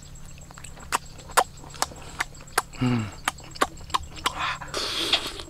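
Close-up mouth sounds of a person chewing grilled octopus: sharp wet smacks and clicks about two to three a second, a short falling 'mm' about three seconds in, and a slurp near the end.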